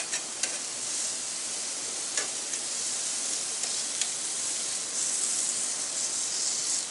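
Steaks searing on the hot grate of a Masterbuilt 560 charcoal grill: a steady sizzle with a few sharp pops, about three near the start, one about two seconds in and one about four seconds in.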